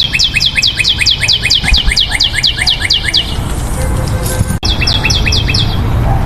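A small bird chirping: a fast run of short, downward-sliding chirps, about six a second. The run stops about three and a half seconds in, and a second short run follows after a sharp click.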